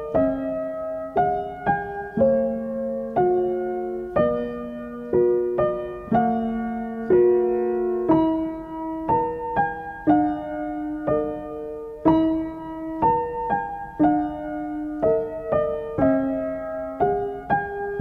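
Background music on piano: notes and chords struck about once or twice a second, each ringing and fading before the next.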